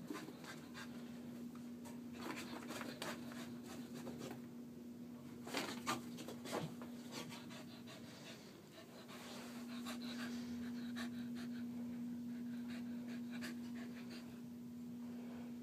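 A Soft-Coated Wheaten Terrier panting as she runs about, with scattered light taps and rustles. A steady low hum runs underneath.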